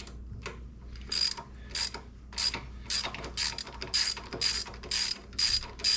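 Hand ratchet with a 5/16-inch Allen socket clicking in quick repeated strokes, about two a second from about a second in, as bolts are run down snug before being torqued.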